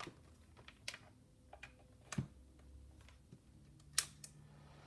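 Scattered light clicks and taps of small test equipment being handled, about seven in all, with a dull knock a little past two seconds in and the sharpest click about four seconds in.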